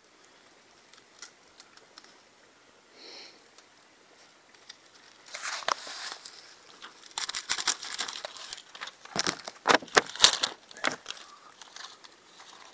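Paper targets rustling and crinkling as hands handle them, in clusters of sharp crackles that begin about five seconds in.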